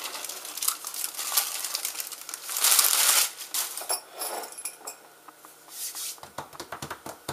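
Wrapping crinkling and rustling as it is peeled off a slab of cookie dough, with a louder burst of rustling about two and a half seconds in, then lighter taps and rustles.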